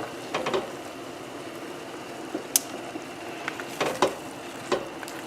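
Shrimp and linguine sizzling in a hot pan, a steady hiss broken by a few sharp clicks of stirring, the sharpest about two and a half seconds in.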